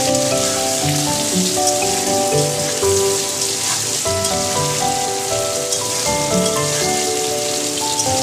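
Potato and pointed gourd pieces frying in hot oil in a wok: a steady sizzle as a spatula stirs them. Instrumental background music with a changing melody plays over it.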